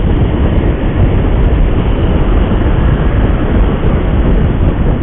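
Steady, loud rumble of wind buffeting the microphone and road noise from travelling along a busy main road in heavy vehicle traffic.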